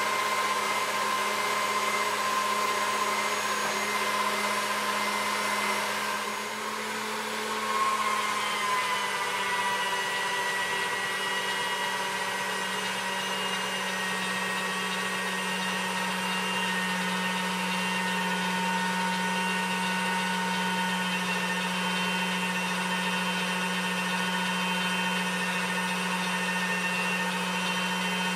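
Electric pasta machine motor running steadily with a hum and a whine as black sesame noodle dough feeds through its rollers and cutter. About seven seconds in the sound dips briefly, then settles at a slightly lower pitch.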